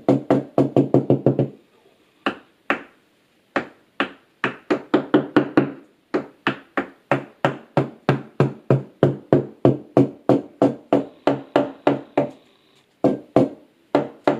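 Screwdriver handle knocking on a plasterboard wall in runs of quick taps, each with a short hollow ring, sounding out where the studs behind it are.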